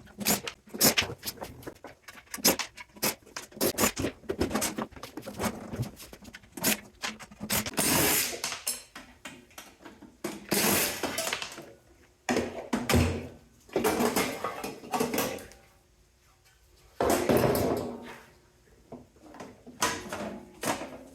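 Tools and metal parts of a cooling unit being taken apart: a quick run of clicks, knocks and rattles, then several harsher bursts of a second or two each, with short pauses between them.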